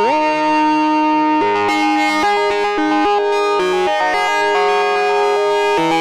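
Eurorack modular synthesizer played live, with an Empress ZOIA EuroBuro module in the patch: held synth tones that swoop up in pitch at the start, then a melody of shifting notes over sustained tones, with the notes changing faster in the second half.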